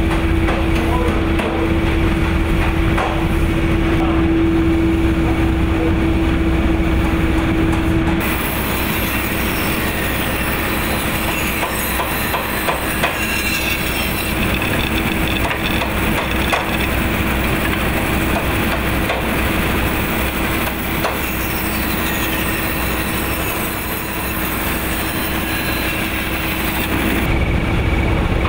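Diesel-engine-driven line shaft and belt pulleys running, a steady mechanical drone with a constant hum. From about eight seconds in until near the end, a belt-driven bandsaw cutting wood adds a hissing sound, and then the plain drone returns.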